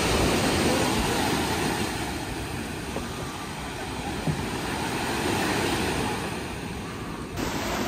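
Sea surf washing onto a sandy beach, a steady rushing noise with wind rumbling on the microphone.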